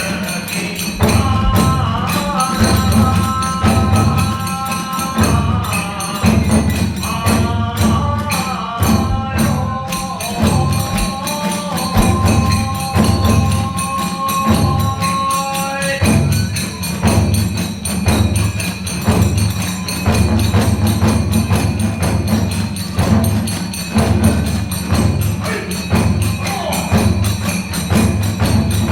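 Kagura hayashi music played live: a steady beat on large and small drums with clashing hand cymbals throughout. Bamboo flutes play a held melody over it for the first half or so, then drop out about sixteen seconds in, leaving drums and cymbals.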